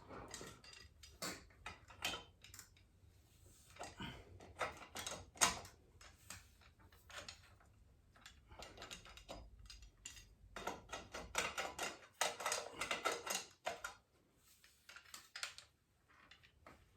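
Light, irregular clicks and knocks of bicycle parts and tools being handled during bottom bracket reassembly, with one sharper knock about five seconds in.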